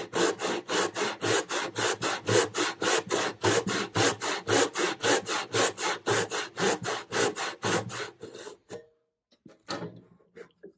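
Brass-backed tenon saw cutting a wooden block with quick, even push-and-pull strokes, about four a second, as it deepens the side cut of a housing joint. The sawing stops about three-quarters of the way through, leaving only a few faint handling sounds.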